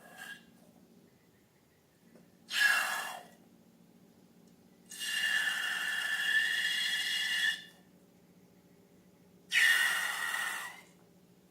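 Three bursts of hissing air, each with a steady whistling tone: a short one, a longer one of about two and a half seconds, then a short one near the end.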